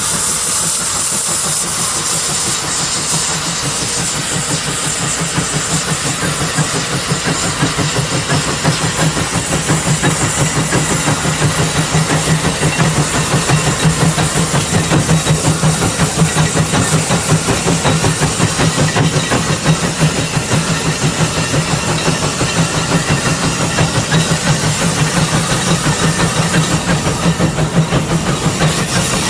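Case 150 steam traction engine working under the load of a plow: a steady, even beat of exhaust chuffs over a hiss of steam. The beat grows clearer after the first several seconds.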